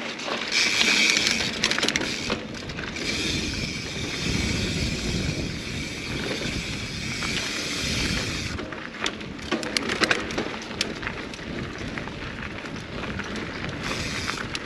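Mountain bike rolling fast along a dirt singletrack: a steady rush of tyre and wind noise, with clatter and sharp clicks from the bike over rough ground, thickest about nine to eleven seconds in.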